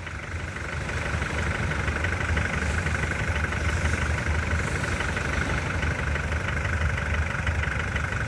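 Engine of a 1972 Mitsubishi Jeep running steadily in low gear, a little louder from about a second in, with a steady high whine over the low engine pulse.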